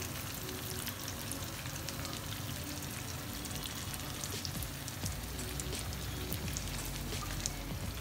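Masala-coated seer fish steaks shallow-frying in hot oil in a pan: a steady crackling sizzle with many small pops.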